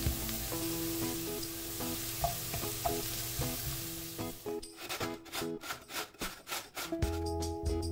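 Chopped onion sizzling in a frying pan while a wooden spatula stirs it. About halfway through, a carrot is grated on a metal box grater in quick strokes, about five a second.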